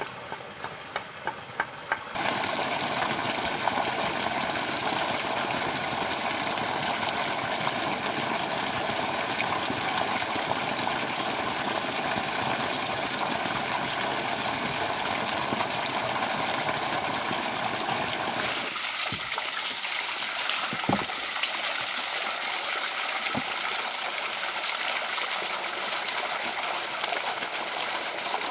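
Water rushing steadily, as from the stream that feeds a water-powered hammer. It starts after a couple of seconds of quick, regular knife strokes shaving wood. Past the middle the rush thins, and two sharp wooden knocks stand out.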